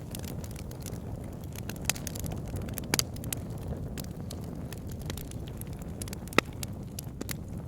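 Wood fire in a log burner crackling over a steady low rumble, with scattered pops and snaps; the sharpest pop comes about six seconds in.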